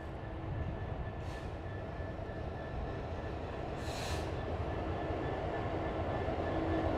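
Class 66 diesel locomotive, its two-stroke V12 engine, approaching very slowly: a steady low rumble growing gradually louder, with a faint steady whine. Two short hisses about a second in and about four seconds in.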